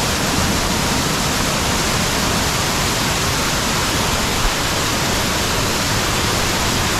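Spring water cascading in thin streams over a mossy rock ledge and splashing into the pool below: a loud, steady rushing.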